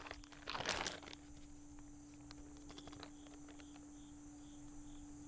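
Plastic zip-top bag crinkling about a second in as it is handled, then a few light clicks of metal tongs as a marinated fish is lifted out. Crickets chirp steadily throughout.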